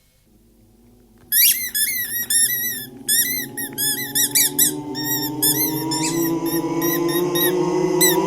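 A corgi squeaking his squeaky elephant toy: after about a second of quiet, the squeaker goes off in quick runs of short, high squeaks. A low steady hum that slowly rises in pitch runs underneath.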